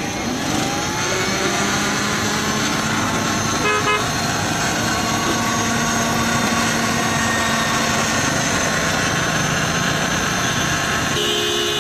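Electric countertop blender starting up and running steadily as it blends a grape milkshake. A vehicle horn toots briefly about four seconds in and again near the end.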